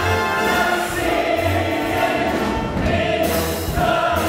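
Musical-theatre ensemble singing in chorus with orchestral accompaniment, in held chords.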